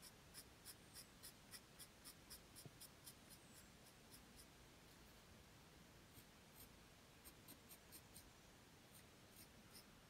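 Faint scratching of a graphite pencil on paper in short, quick shading strokes, about four a second, pausing briefly around the middle.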